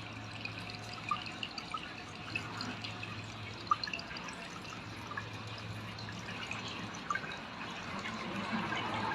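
Water in a water-lily bowl trickling faintly, with scattered small drips.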